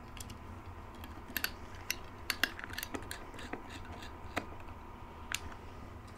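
Precision screwdriver driving a tiny screw into a plastic remote control's back housing: irregular small clicks and ticks of the metal bit and the plastic case, a few sharper ones in the middle.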